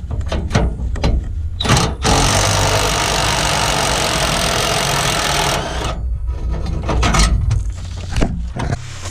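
Impact wrench with a 13 mm socket hammering for about three and a half seconds, starting about two seconds in, as it runs off a fuel tank strap bolt. Metal clinks and knocks from the socket and tools come before and after the run.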